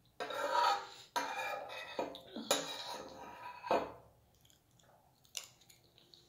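Metal spoon scraping around the inside of a ceramic bowl of thick porridge, several scrapes in quick succession over about four seconds, then one short clink.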